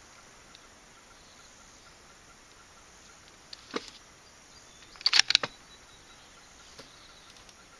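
Sharp metallic clicks of a Ruger American Predator's bolt being worked between shots: one click a little over three and a half seconds in, then a quick run of several clicks about five seconds in. Insects chirp faintly underneath.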